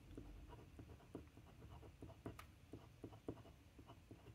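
Glass dip pen nib scratching faintly over a paper swatch card as small letters are written: a run of short, irregular pen strokes with one sharper tick about two and a half seconds in.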